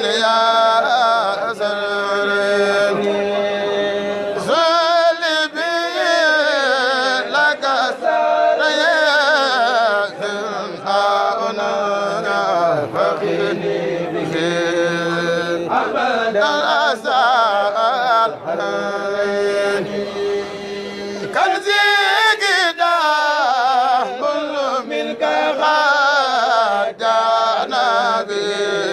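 A Senegalese Mouride kourel chanting a xassida, a devotional Arabic poem, unaccompanied. A male voice sings long melismatic lines that waver and bend in pitch, alternating with long held notes.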